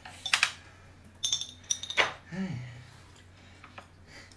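A few sharp clinks of dishes and utensils at a meal table, the loudest about two seconds in, followed by a short hum-like vocal sound.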